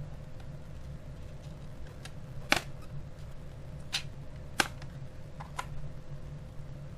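Plastic retaining clips of an HP 1000 laptop's bottom service cover snapping loose under a plastic pry pick, a handful of sharp clicks over a few seconds, the loudest about two and a half and four and a half seconds in.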